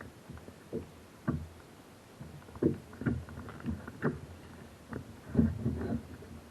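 Irregular hollow knocks and bumps against a kayak's hull, roughly one or two a second, the loudest cluster about five seconds in.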